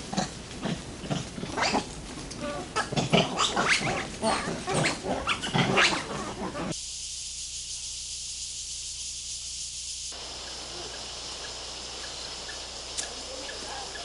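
Formosan rock macaques calling: a dense run of short grunts and sharp squeals for about the first seven seconds. After that it gives way to a steady high hiss of forest background.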